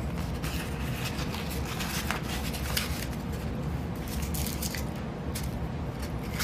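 Sandpaper rustling and crinkling as a strip of 400-grit is rolled up and worked into a black plastic pipe fitting, with a few light clicks and taps of the plastic as it is handled.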